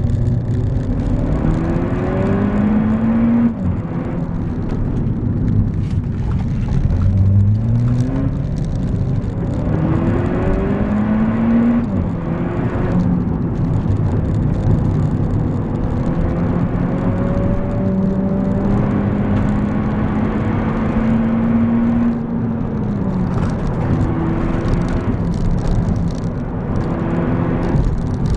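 Skoda Fabia vRS engine heard from inside the cabin, driven hard: the revs climb and fall back several times as it shifts gears, with one longer steady stretch before easing off, over loud road and tyre noise.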